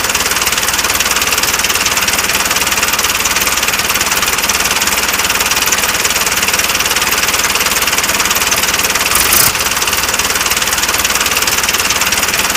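Tractor engine running steadily with a fast, even knocking pulse, loud throughout, with a brief louder burst about nine seconds in.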